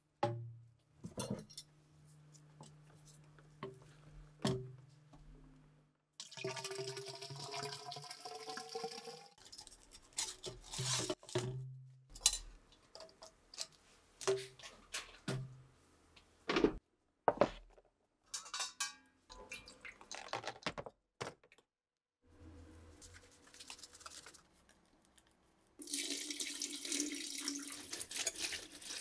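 Hands-on workshop handling noises, separate knocks, taps and clacks of a plastic pipe and clamps. Partway through, a rising pitch as a container fills with water. Near the end, a stream of running water splashing onto rusty steel rifle parts.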